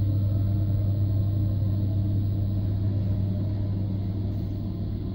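CGB-K-20 wall-hung gas condensing boiler running, a steady low hum and rumble.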